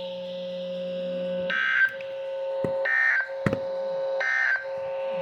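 Emergency Alert System SAME digital data bursts from a NOAA Weather Radio broadcast: three short bursts of shrill data tones, about a second and a half apart. This is the end-of-message code that closes the flood warning. Under them runs a steady hum.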